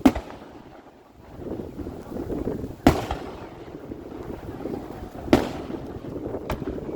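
Aerial fireworks exploding: three loud bangs about two and a half seconds apart and a smaller pop near the end, with a low rumble between the bursts.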